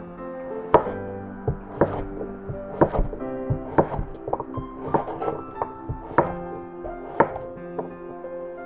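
Kitchen knife chopping on a cutting board, one sharp stroke about every second with lighter taps between, over background music.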